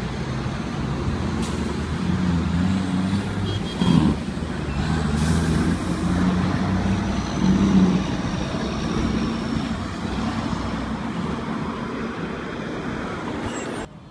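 Heavy trucks' diesel engines running as they drive past on the street, mixed with other traffic, with louder surges about four and eight seconds in and a short hiss about five seconds in.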